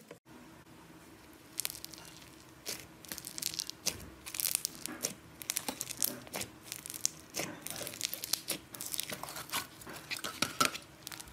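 Blue fluffy slime with small foam beads being poked and stretched by hand, giving irregular crackling, crunchy pops and short tearing sounds that come thicker towards the end.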